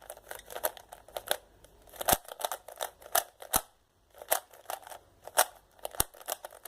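Plastic 3x3 speedcube being turned by hand, its layers snapping round in quick irregular clicks, several a second, with a brief pause a little before halfway.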